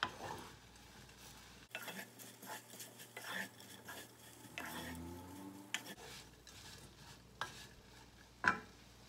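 Wooden spatula stirring soybeans and small shrimp in a saucepan simmering in a thick, reduced sauce: irregular soft scrapes and knocks against the pan, with a sharper knock at the start and another near the end.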